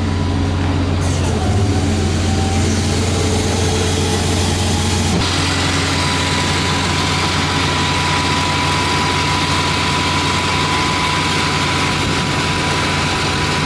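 Heavy truck engine idling steadily with a deep low hum. A thin steady whine joins about six seconds in.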